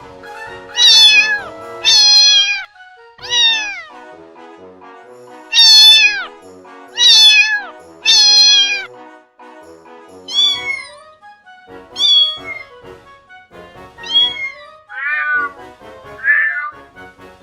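Domestic cat meowing over and over: about a dozen separate meows, each falling in pitch, the loudest in the first half and softer, shorter ones toward the end.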